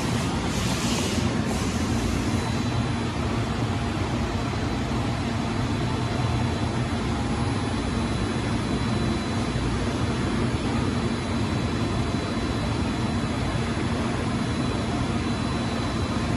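Steady drone of running industrial machinery in a machine shop, with a low hum and a faint high whine, and a short hiss in the first second or so.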